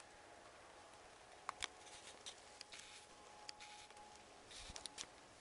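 Scattered raindrops dripping and tapping on a nearby surface over a faint steady hiss: a few sharp taps about a second and a half in and a small cluster near the end.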